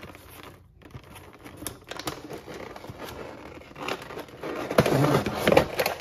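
Thin clear plastic packaging tray crinkling and crackling as it is slid out of a cardboard box and handled, with scrapes and small clicks of plastic on cardboard. The loudest crackling comes about five seconds in.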